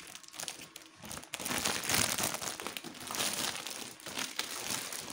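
Foil balloon envelope of an Air Swimmers toy shark crinkling and rustling as it is pulled out and handled, in uneven bursts, loudest about two seconds in.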